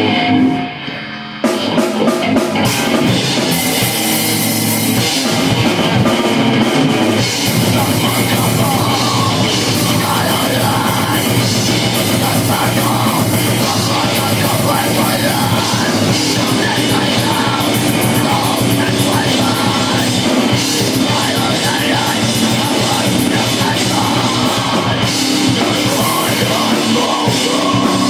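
Loud heavy rock music with a drum kit, the full band coming in about a second in after a thinner opening.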